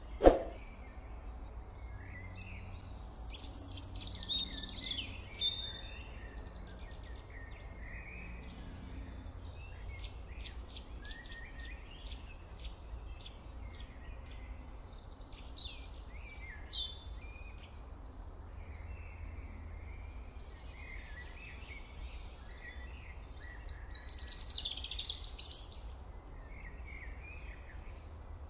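Birds chirping and singing in short phrases, louder in three spells, over a steady low hum. A single sharp ding right at the start.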